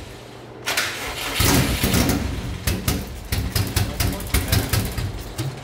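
Subaru WRX turbocharged flat-four engine being cranked on the starter, trying to fire on its first start. It comes in suddenly under a second in, then runs in uneven pulses.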